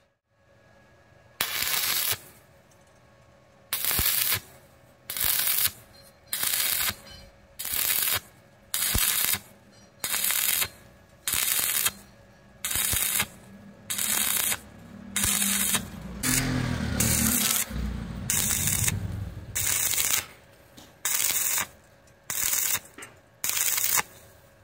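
Stick (arc) welding arc crackling in short bursts, the electrode struck and broken off again about once every second or so, laying the weld in stitches. A low rumble joins in around the middle.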